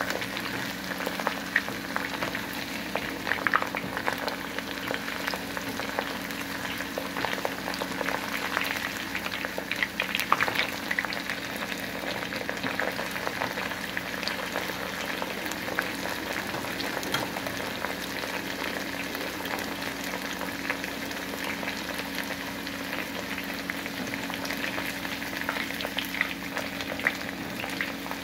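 Cornflour-coated boneless chicken pieces deep-frying in hot oil: a steady bubbling sizzle full of small crackles and pops as a wire skimmer turns them. A low steady hum runs underneath.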